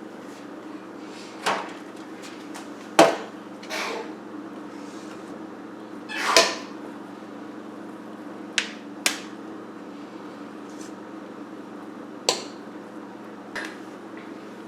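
Scattered knocks and clacks of a cookie scoop against the mixing bowl and baking sheet as cookie dough is portioned out, about eight in all, one near the middle a little drawn out, over a steady low hum.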